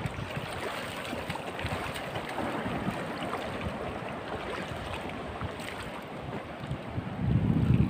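Shallow seawater sloshing and lapping, a steady crackly wash, with wind rumbling on the microphone near the end.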